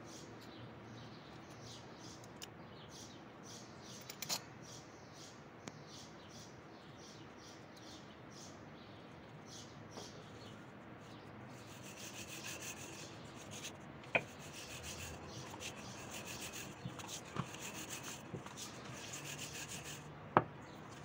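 Dough being rolled out thin with a rolling pin: repeated rubbing strokes that grow busier in the second half, with a few sharp knocks, the loudest near the end.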